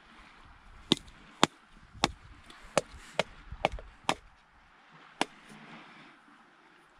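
A hard plastic egg-shaped capsule knocked against a rock about eight times in quick, uneven succession, being struck to crack it open.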